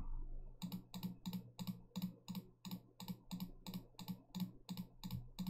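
SteelSeries Sensei gaming mouse button clicked over and over at a steady pace of about three clicks a second, starting about half a second in. The mouse is under test because its right click registers only sometimes.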